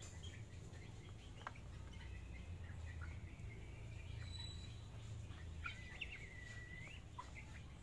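Faint bird calls over a low steady rumble: a thin whistled call through the middle, then a longer held whistle that rises at each end about two-thirds of the way in. A few short clicks are scattered through.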